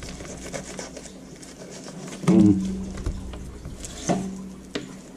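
Fillet knife cutting along a crappie's backbone on a plastic cutting board: faint scraping with a few light clicks. Two short wordless voice sounds come about two and four seconds in.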